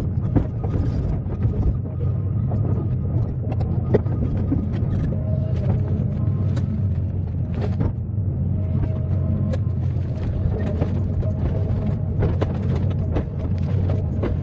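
Excavator engine running steadily, with scattered clanks and knocks over the drone.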